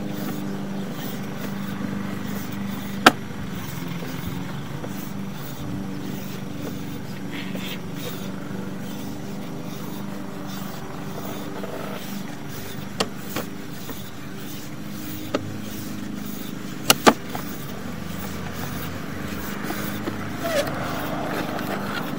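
Steady low motor hum with a few sharp clicks scattered through it, while a sewer camera's push cable is hauled back out of the pipe.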